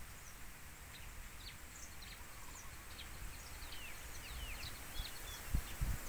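Small birds chirping in short, quick falling notes over a soft steady wind hiss, with a few low gusts of wind buffeting the microphone near the end.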